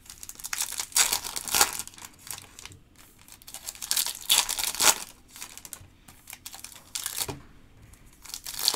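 Trading-card pack wrappers crinkling and tearing as packs are opened by hand, in short bursts a few seconds apart.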